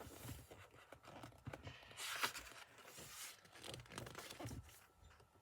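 Paper rustling and crinkling as the pages of a picture book are handled and turned, a run of soft crackles that is loudest about two seconds in.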